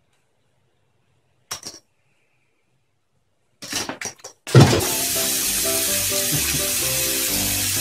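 Silence broken by a few brief clicks, then, just past halfway, background music starts with a steady hiss over it.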